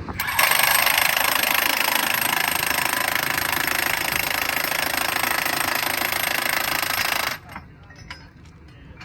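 Impact wrench hammering rapidly on a track bolt of the diamond crossing for about seven seconds, then stopping suddenly.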